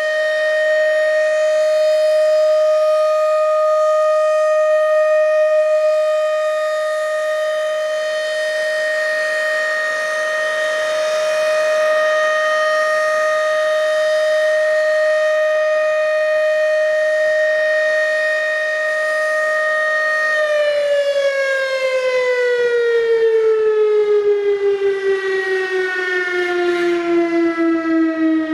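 Federal Signal RSH-10 rotating electromechanical warning siren sounding a loud steady full-alert tone. About twenty seconds in, the tone starts falling in pitch as the siren winds down at the end of the alert.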